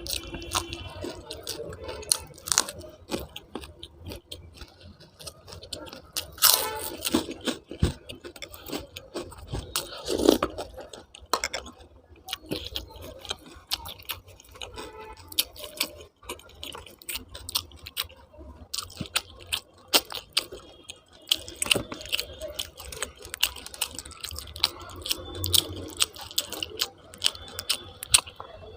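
A person eating close to the microphone: chewing and wet mouth sounds, with irregular crunchy bites and clicks throughout.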